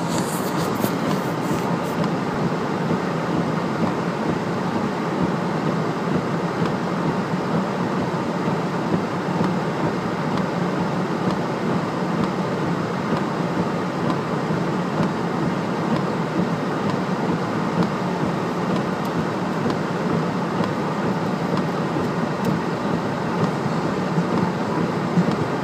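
Steady cabin noise of a car driving on a rain-wet road: an even rumble and tyre hiss with no change in speed.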